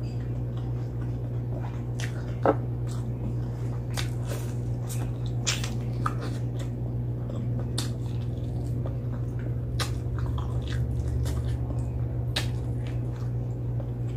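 Close-up eating sounds of fried chicken eaten by hand: irregular wet mouth smacks, bites and chewing clicks. A steady low hum runs beneath, and one sharper click about two and a half seconds in is the loudest sound.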